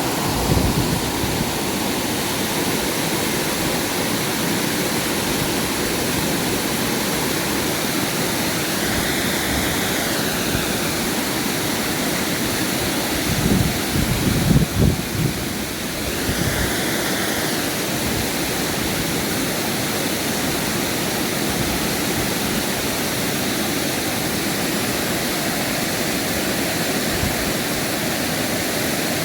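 Mountain river rushing over rocks: a steady, even roar of water. A few low thumps come about halfway through.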